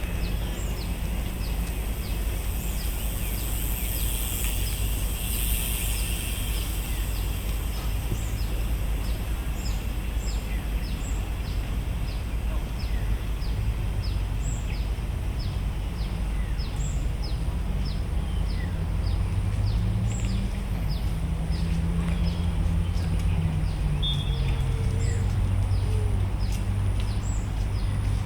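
Outdoor park ambience: a steady low rumble with a short high chirp repeating about twice a second and a sparser higher chirp every second or two. A low droning hum swells and wavers in pitch in the second half.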